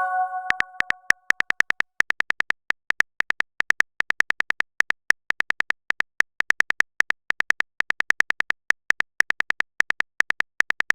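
Phone keyboard typing sound effect: quick clicks in uneven runs, as a text message is typed out. A short chime-like notification tone fades out over the first second or so.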